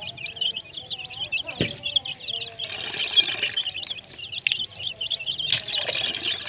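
A brood of baby chicks peeping without pause in rapid, high chirps, with a hen's lower clucks underneath. A sharp knock comes about a second and a half in.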